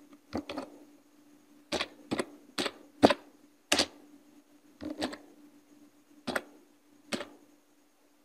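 Computer keyboard keystrokes: a dozen or so short, sharp clicks at an uneven, slow typing pace, sometimes in quick pairs with pauses of up to a second between.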